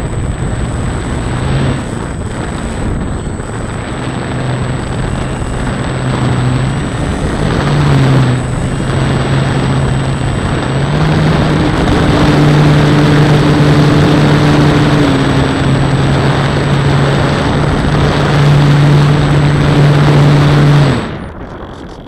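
Model airplane's propeller and motor heard from a camera on board, with a loud rush of wind over the microphone. The low hum steps up and down in pitch, then the motor cuts out and the wind rush drops about a second before the end.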